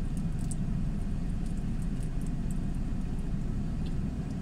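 Steady low rumble of road traffic, with a few faint high ticks.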